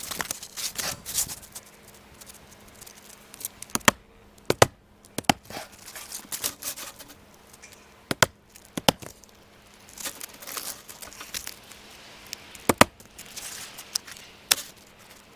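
Knife cutting through an asphalt roofing shingle: scratchy, rasping slicing and tearing strokes, broken by about seven sharp knocks at irregular intervals.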